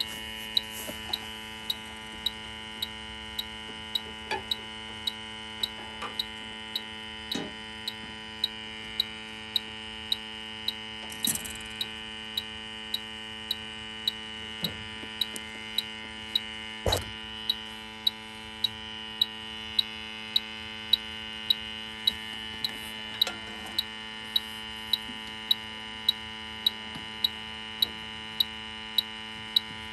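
Bacharach H-10 heated-diode refrigerant leak detector ticking evenly, about one and a half ticks a second, over a steady whine and hum, as its probe is worked along the evaporator coil searching for a refrigerant leak. A few handling knocks, the loudest about halfway through.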